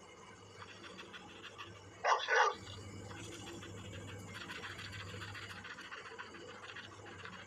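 A dog barking, a quick double bark about two seconds in, over faint background hiss.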